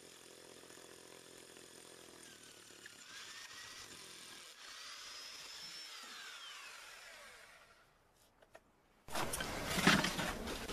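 Faint, sped-up running of a Bosch hammer drill with a 2-inch core bit boring through a brick wall, its pitch wandering up and down before it fades out. About nine seconds in, a much louder rough scraping and knocking noise takes over.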